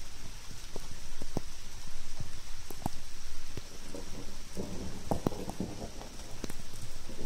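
Steady rain, with irregular sharp ticks of drops striking the smartphone close to its microphone.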